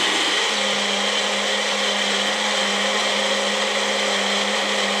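Electric kitchen blender running steadily at one speed, blending chile, a constant motor hum and whine under the churning of the jar.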